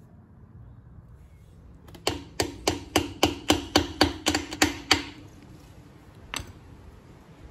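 A hammer tapping a block-off plug into the ABS sensor hole of a Ford 8.8 axle housing: about a dozen quick, ringing metal taps over three seconds, then one more tap a second and a half later.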